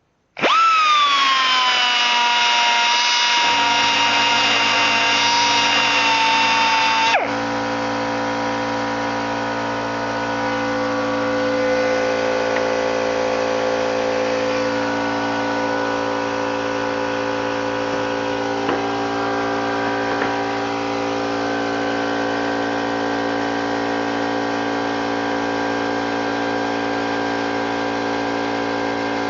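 Air-powered 1/4-inch die grinder starting with a high whine on a scrap of wood, its pitch dropping slightly and then holding, until it cuts off suddenly about seven seconds in. An air compressor's motor starts up a few seconds in and keeps running with a steady hum.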